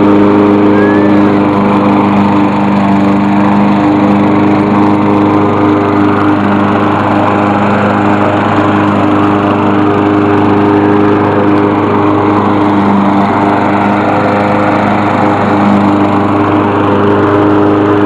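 Gasoline walk-behind lawn mower engine running steadily and loudly as the mower is pushed across the grass.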